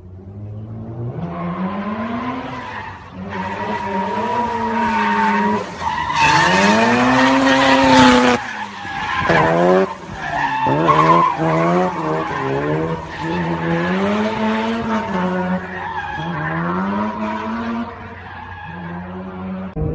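A car drifting: its engine revs rise and fall over and over, about every couple of seconds, while the tyres squeal and skid on the asphalt throughout. It is loudest about a third of the way in.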